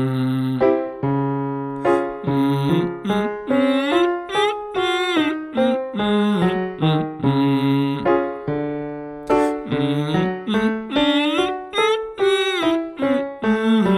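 Vocal exercise example: piano playing repeated chords under a singer who sings short phrases that glide up and down in pitch, sung lightly.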